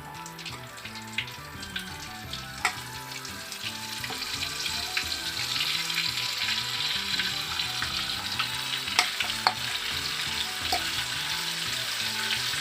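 Flour-coated chicken pieces sizzling as they fry in oil, the sizzle growing louder from about four seconds in, with a few sharp clicks of a utensil against the pan.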